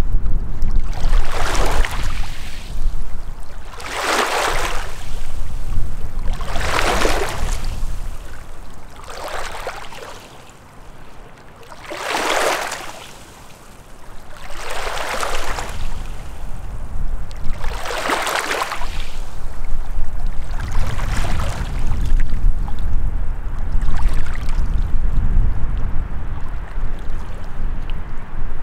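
Small lake waves lapping and washing onto a sandy, pebbly shore, one soft splash about every two to three seconds, fading away near the end. Wind rumbles on the microphone underneath.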